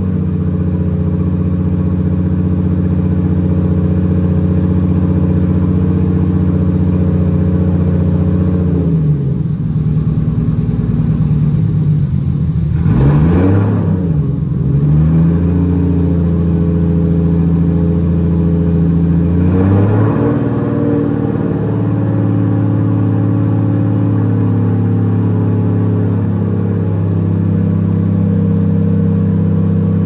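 Nissan Skyline R32's turbocharged RB25 inline-six engine idling through a freshly fitted 4-inch exhaust. The idle sags and wavers for a few seconds, then the engine is blipped twice, about a third and two-thirds of the way in, before settling back to a steady idle.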